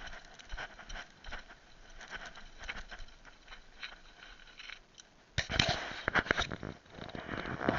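A mountain bike rolling over rough, loose trail, with tyres crunching on gravel and stones and the bike rattling in irregular clicks. It gets much rougher and louder from about five seconds in.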